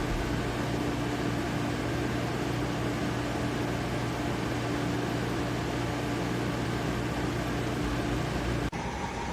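Shinco 12,000 BTU portable air conditioner running on low, a steady fan rush with a low hum. The sound cuts off suddenly near the end, replaced by a different steady hum with a higher tone.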